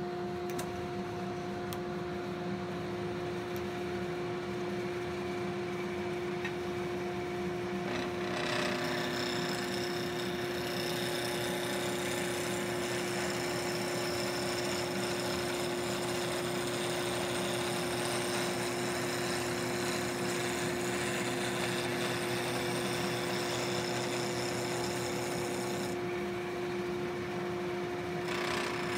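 Wood lathe and dust collector running with a steady motor hum. From about eight seconds in, a turning tool cuts the spinning wood blank down to a straight dowel, adding a continuous hissing shave that dips briefly near the end.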